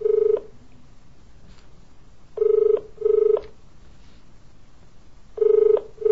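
Telephone ringback tone heard down the line as an outgoing call rings before it is answered: double rings, two short tones a fraction of a second apart, repeating about every three seconds over faint line hiss.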